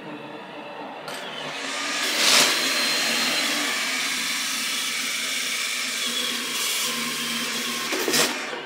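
Roomba 705 robot vacuum running, its suction motor stepping up about a second in to a louder, higher-pitched level. It holds there for about six seconds, with a brief loud burst near the start and another near the end, then drops back to its lower setting.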